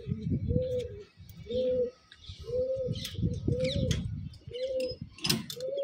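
Domestic pigeons cooing in a loft: a steady run of short, repeated coos, roughly one a second. A sharp click about five seconds in as the cage door latch is worked.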